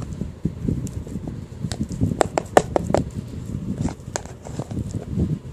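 Scuffing and rustling of a savannah monitor moving and feeding on a towel, with a quick run of sharp clicks about two to four seconds in.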